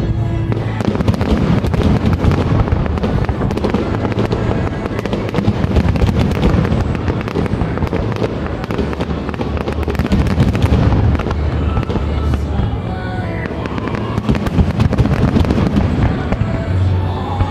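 Fireworks going off in quick succession: a dense, continuous stream of crackles and bangs.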